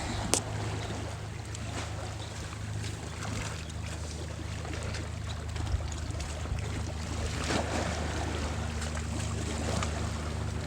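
Shoreline ambience at a bay: a steady low hum, with water noise lapping and a few faint clicks.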